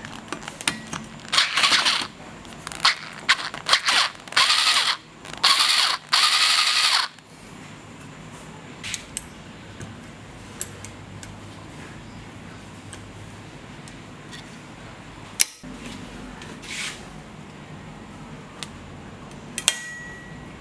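Screwdriver bit scraping against a rusted screw head in a wooden knife handle, in a run of short, loud, rasping bursts over the first few seconds. Then locking pliers work the screw, with scattered light metal clicks and two sharp metal snaps.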